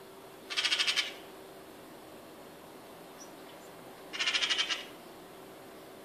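Eurasian magpie giving two bursts of harsh, rapid rattling chatter, each about half a second long: one about half a second in and another about four seconds in. This is the scolding alarm chatter that magpies aim at a predator such as a cat.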